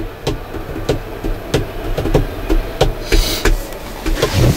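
A string of irregular knocks and thumps, a few a second, over a low rumble, with a short hiss about three seconds in.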